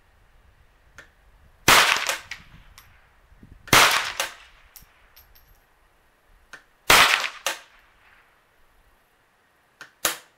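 Three .22 LR rifle shots, about two and then three seconds apart, each with a short echo, and a fainter sharp snap near the end.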